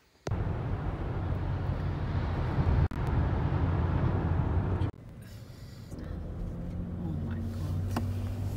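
Road and engine noise inside a moving car's cabin at highway speed, a steady low rumble. It drops to a quieter level about five seconds in, with faint voices underneath.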